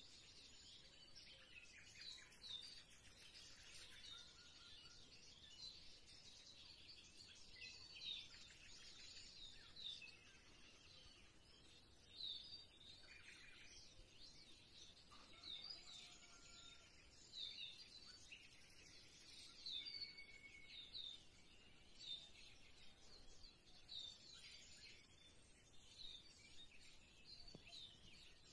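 Near silence with faint bird chirps, short high calls repeating every second or two.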